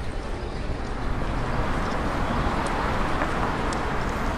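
City street traffic ambience: a steady wash of road noise from passing cars, rising slightly about a second in.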